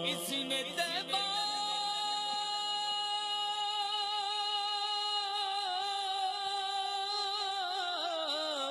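A solo voice singing an unaccompanied Urdu naat (devotional song in praise of the Prophet), holding one long note from about a second in that wavers as it ends.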